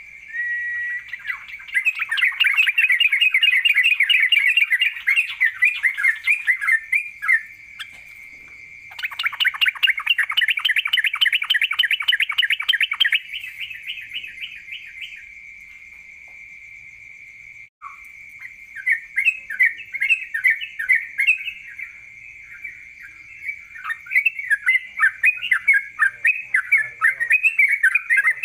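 Songbird singing in fast, rapid-fire trills, in two long bursts of several seconds each, then a run of quick sharp chirps. A steady thin high tone runs underneath.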